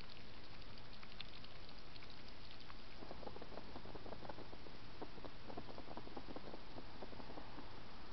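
Faint rapid clicking and crackling from a European hedgehog, thickest for a few seconds from about three seconds in, over a steady hiss from the trail camera's microphone.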